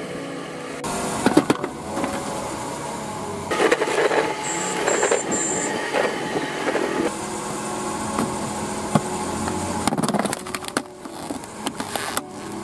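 Renault car creeping forward at low speed, engine running and tyre rolling on gritty asphalt, as its front wheel is driven against a motorcycle helmet lying on the road. Scattered clicks and creaks come from the tyre pressing on the helmet's plastic shell, most of them in the last few seconds.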